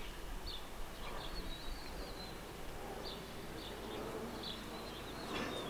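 Quiet outdoor ambience with faint, short high-pitched chirps every half second or so, some running into brief trills, over a steady low hum. No shots are fired.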